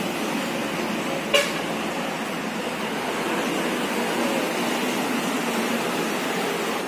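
Steady vehicle noise, with one sharp click about a second and a half in.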